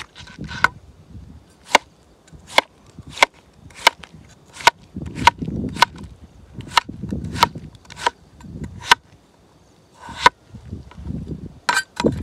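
Steel cleaver slicing a cucumber on a plastic cutting board: about a dozen sharp, evenly spaced chops, each blade stroke ending in a knock on the board, with a short pause a little before ten seconds.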